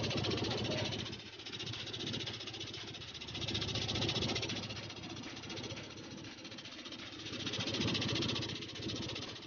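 Hydraulic pump unit for the cylinder-cover nut jacks running, a steady rattling hiss that swells about every four seconds.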